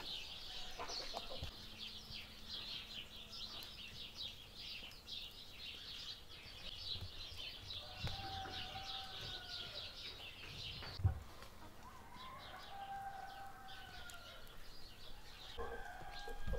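A rooster crowing faintly, about eight seconds in and again in a longer call a few seconds later, over steady high chirping of small birds. A single thump comes around eleven seconds in.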